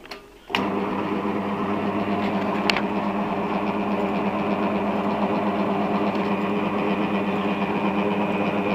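Motor of a 1989 Nu-Tool industrial pillar drill switched on about half a second in, then running with a steady hum, with one short tick near three seconds in.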